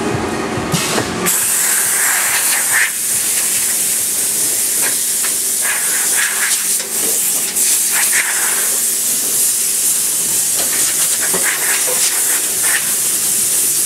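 Johnsford VMC-500 CNC vertical mill giving off a steady, strong, high hiss like escaping compressed air. It starts suddenly about a second in, as the lower running noise of the machine stops. Scattered light clicks and knocks come through the hiss.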